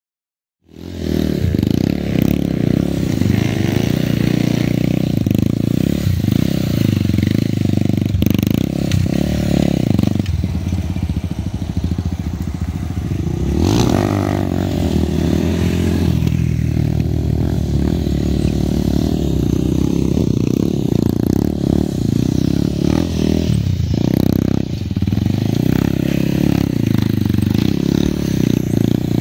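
Stunt motorcycle's engine running loud and continuous under throttle as it is ridden in wheelies, with a short sharper burst about halfway through.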